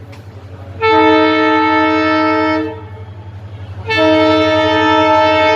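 Indian train horn sounding two long, steady blasts of about two seconds each, the second starting about four seconds in, over a steady low hum.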